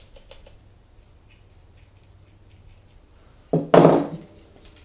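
Light plastic clicks and ticks from a car door lock actuator being handled and its lever worked by hand on a wooden bench. A brief loud pitched sound comes about three and a half seconds in.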